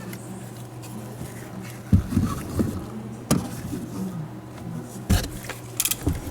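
Scattered knocks and clunks of someone climbing into a pickup bed and handling parts, five or so sharp hits a second or more apart, over a steady low hum.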